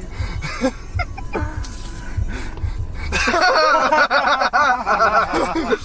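About three seconds in, loud high-pitched laughter breaks out in quick rising-and-falling bursts, after a stretch of faint voices and low thumps.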